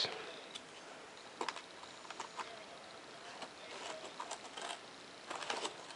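Faint, scattered light clicks and crinkles of a packing-taped foam-board piece being handled and fitted back into its cutout in a foam model jet.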